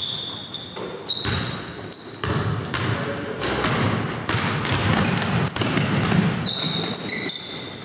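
Pickup basketball game on a hardwood gym floor: the ball bouncing, sneakers squeaking in short high chirps and players' running footsteps, echoing in a large hall.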